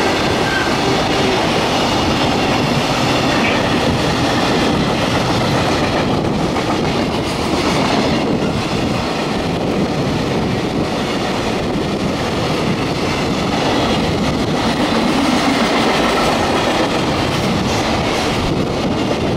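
Container flat wagons of a freight train passing at speed: a steady, loud rumble of steel wheels on rail with a clickety-clack over the rail joints.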